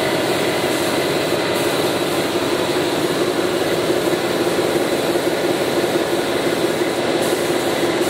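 Steady drone of machinery running in a spray-painting workshop: an even hiss with a steady, slightly pulsing hum, no change throughout.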